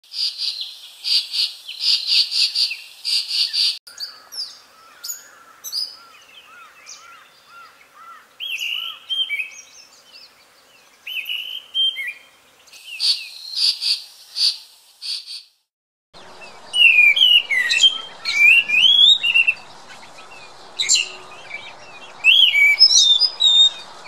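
Thrushes singing, in several spliced recordings: rapid repeated chattering notes at first, then clear whistled and warbled phrases. A brief gap about 16 s in leads to a new recording with background hiss and louder, varied song phrases.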